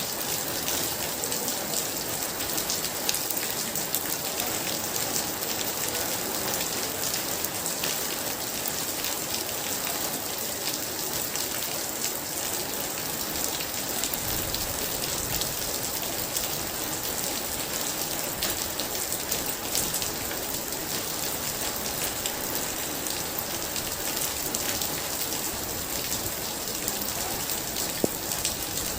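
Very heavy rain falling steadily, a dense even hiss with many sharp individual drop hits.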